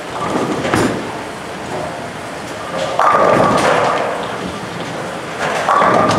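Bowling ball rolling down a wooden lane, with a knock under a second in, then a loud crash of pins about three seconds in that rattles on for about a second. A second pin crash follows near the end.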